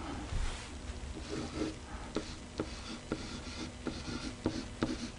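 A stylus writing on an interactive whiteboard: short scratching strokes, with about six sharp taps in the second half as the pen touches down between letters.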